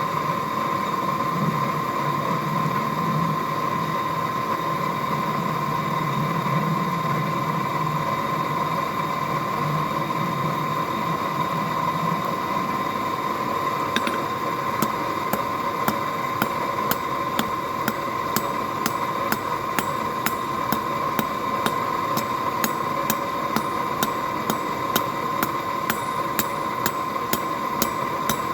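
Steady background noise with a constant high hum. About halfway through, a hand hammer starts striking mild steel on an anvil in an even rhythm of about two blows a second.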